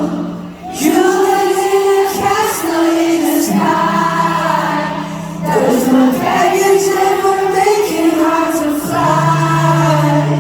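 Live pop song in concert: singing over sustained low instrumental notes that shift to new chords a few times.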